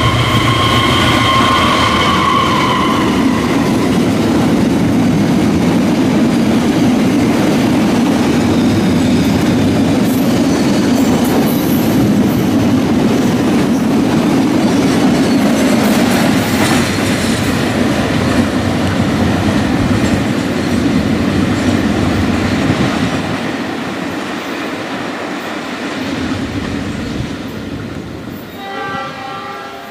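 Diesel locomotive's horn sounding a chord, cutting off about three seconds in. Then the steady rumble and wheel clatter of a long train of fuel tank wagons rolling past, fading as the train draws away, with another short tone near the end.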